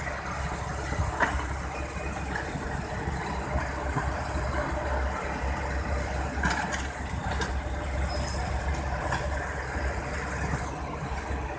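Kobelco SK65 mini excavator's diesel engine running steadily with a deep, even rumble, with a few short knocks and clanks over it.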